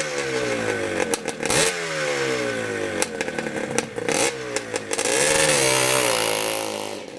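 Motorcycle engine revved in repeated blips, each rev sliding back down in pitch, with sharp crackles between them. A longer, wavering rev comes near the end before it dies away.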